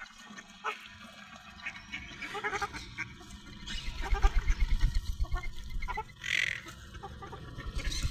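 Captive birds calling: a series of quick, pulsed calls, then one louder call about six seconds in, over a low rumble.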